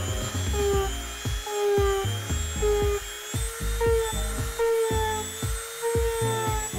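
Dremel rotary tool with a stone grinding bit running as it is worked along the glued seams of an EVA foam mask to soften them. Background music plays underneath.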